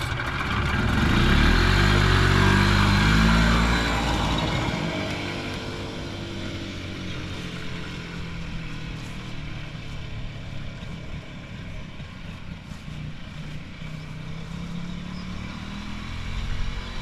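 Early-1980s Par Car golf cart's two-stroke Harley-Davidson engine revving up as the cart pulls away, rising in pitch and loudest for the first few seconds. It then fades and runs steadier as the cart drives off into the distance.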